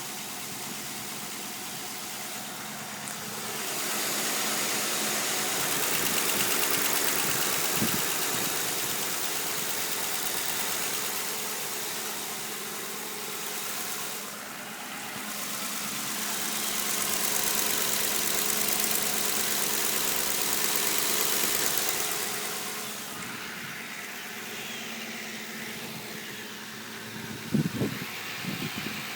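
2009 Ford Crown Victoria Police Interceptor's 4.6-litre V8 idling with the ticking and clicking that the owner cannot identify. A loud hissing rush swells and fades twice over it, and a few sharp knocks come near the end.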